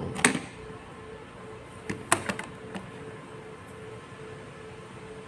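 A few sharp plastic clicks and taps from a phone tripod clamp being handled and adjusted: one just after the start, then a quick cluster about two seconds in. A faint steady hum runs underneath.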